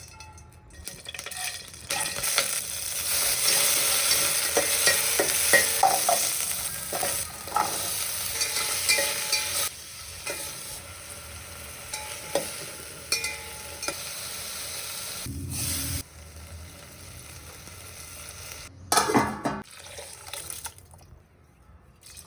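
Food frying and sizzling in a pan while a utensil stirs and clinks against it. The sizzle is loudest for the first several seconds, then drops off to a quieter hiss with occasional knocks, and there is a short loud burst of noise a little before the end.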